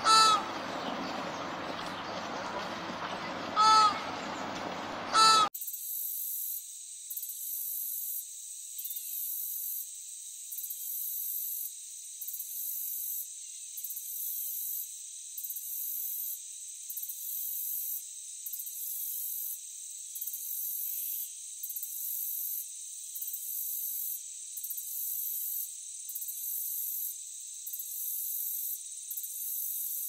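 A flock of flamingos calling: three loud honks over a steady flock murmur, cut off suddenly about five seconds in. After the cut comes a thin, high-pitched sound, a steady whine with a hiss that pulses about every second and a quarter.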